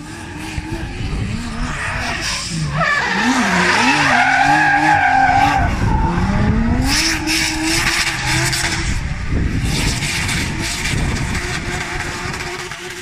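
A drift car's engine revving hard, its pitch swinging up and down as the car slides sideways, with the rear tyres squealing loudly for a few seconds near the middle.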